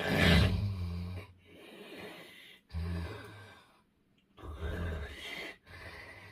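A man snoring in his sleep: three loud, low snores, the first the loudest, each followed by a quieter breath out.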